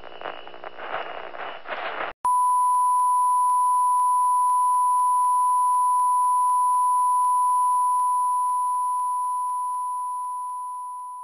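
Television test-card tone: a single steady pure beep that starts about two seconds in, holds level, then fades away near the end. Before it comes a short stretch of crackling, glitchy noise that cuts off abruptly.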